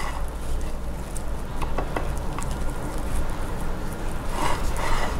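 A silicone spatula spreading thick cake batter in a glass baking dish: soft scraping and squishing, with a few light clicks against the glass, over a steady low hum.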